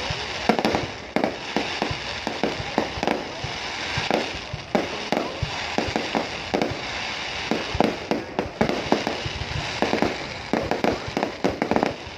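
Fireworks display going off: many irregular bangs of shells bursting, often in quick clusters, over continuous crackling.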